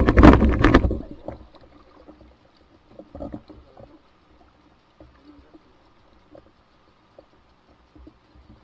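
A loud rushing noise on the inflatable boat, from the motor or wind on the microphone, cuts off abruptly about a second in. What is left is quiet: water lapping against the inflatable hull, with a few faint knocks.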